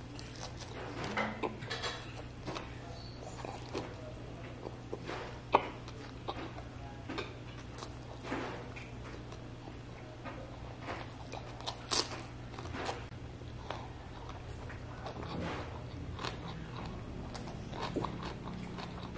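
A man chewing a mouthful of rice and side dishes close to the microphone, wet mouth clicks and smacks coming irregularly, with crunchy bites into a raw cucumber slice. A steady low hum runs underneath.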